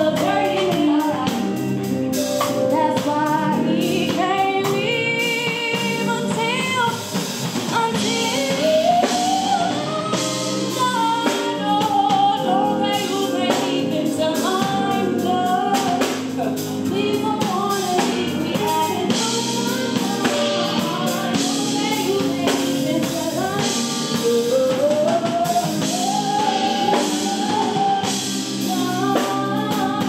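Live R&B band: a woman sings a sliding, ornamented melody into a microphone over electric guitar, bass guitar, drum kit and keyboard.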